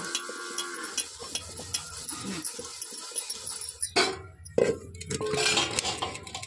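Steel utensils clinking and knocking against each other as they are washed by hand, with two sharper, louder knocks about four seconds in.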